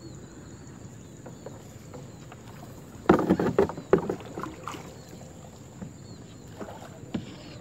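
Small boat being pushed along with a long pole through shallow flood water and rice stalks: low water sloshing, with a cluster of louder splashes and scrapes about three seconds in and a few lighter knocks later.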